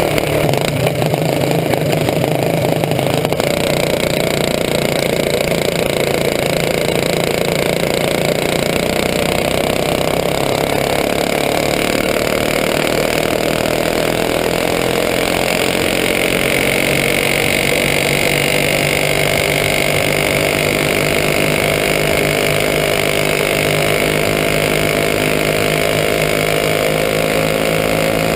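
Racing champ kart's engine heard on board at speed, running steadily with its pitch climbing slowly over the second half, with wind noise over it.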